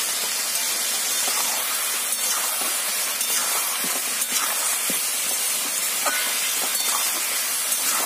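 Chicken, tomatoes and green chillies sizzling in oil in a kadai, a steady hiss, with a few light scrapes of a metal spatula stirring them.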